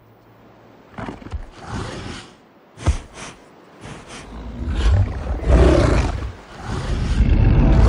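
Film sound effect of a giant wolf growling and snarling, low and quiet at first, then loud from about five seconds in. There is a single sharp thud about three seconds in.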